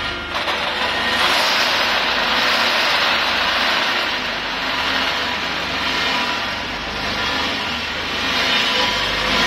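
Peanuts pouring out of a stainless-steel drum roaster down its discharge chute into a metal tray, a steady, dense rattle that starts suddenly about half a second in.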